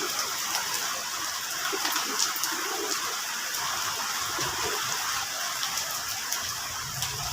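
Steady rain falling, a continuous hiss with scattered sharp drip ticks.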